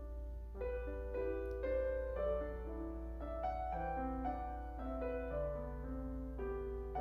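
Gentle solo piano music, single notes and chords entering one after another over a steady low hum.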